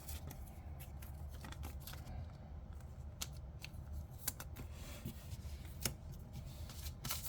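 Trading cards being handled close to the microphone, with faint scattered clicks and rustles. A few sharper clicks come around the middle.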